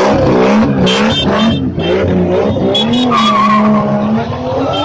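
Nissan Skyline GT-R pulling away hard: engine revving high and holding steady, with tyres squealing. Loud throughout.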